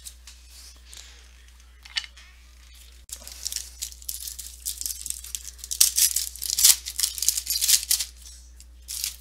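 Foil wrapper of a 2015 Topps Fire football card pack being torn open and crinkled by hand: a dense run of sharp crackling rustles from about three seconds in until near the end.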